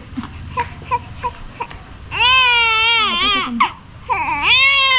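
Newborn baby crying: two loud wails of about a second and a half each, the first starting about two seconds in, the second about a second later. A few soft clicks come before them.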